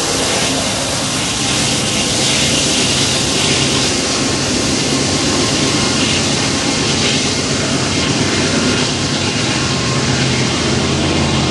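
Loaded coal train moving away just after its rear diesel locomotive has passed: steady rumble and wheel hiss with a low engine drone underneath.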